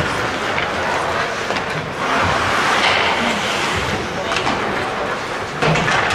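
Ice hockey game in progress: a continuous scraping hiss of skates on the ice, scattered sharp clacks of sticks and puck, and indistinct shouting from players and spectators.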